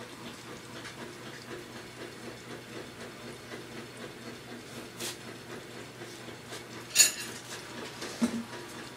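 Kitchen background with a steady low hum, a light click about five seconds in, then a sharp clatter of kitchenware about seven seconds in and a softer knock a second later.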